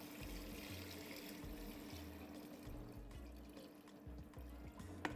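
Ice-cold water being poured into a stockpot of browned chicken wings, a splashing pour that tapers off over the first few seconds. A few sharp clicks come near the end.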